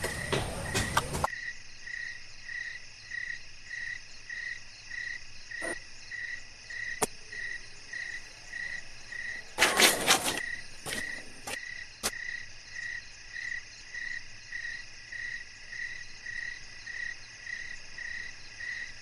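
Crickets chirping in a steady, even pulse, about one and a half chirps a second, over a high insect drone. A few scattered clicks, and a brief louder cluster of knocks about ten seconds in.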